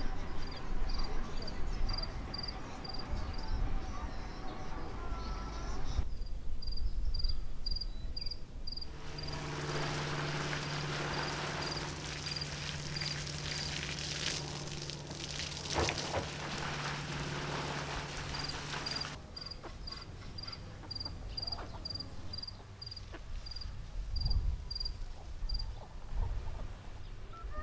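An insect chirping: short, evenly spaced chirps at one high pitch, about three a second. They stop around six seconds in and return after about eighteen seconds. In between, a steady low hum with hiss fills about ten seconds.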